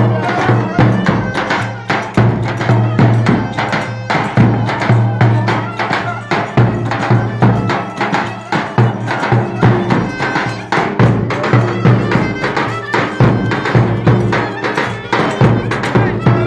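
Traditional Turkish folk music for a village wedding, with sustained melody tones over a steady, regular percussion beat.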